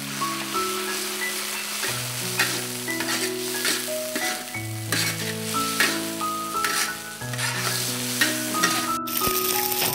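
Oil sizzling in a wok as diced eggplant and minced beef are stir-fried, with a metal spatula scraping and tossing against the wok every second or so. Background music with a slow melody plays throughout. The sizzle breaks off briefly just after nine seconds.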